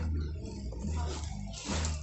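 Background music with a steady, pulsing bass line, over the crinkle and rustle of plastic packaging as parts are pulled from a cardboard box; the loudest rustle comes near the end.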